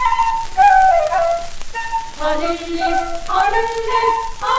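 Yemenite-style song on a 1957 recording: a quick, ornamented melody of short gliding notes on the chalil (shepherd's flute) between the sung lines, settling into a long held note near the end.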